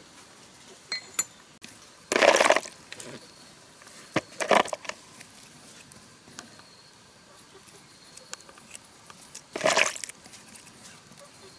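Hand work on a belt-driven pressure-washer plunger pump: a few light metallic clinks and three short scraping bursts, about two seconds in, at four and a half seconds, and near the end.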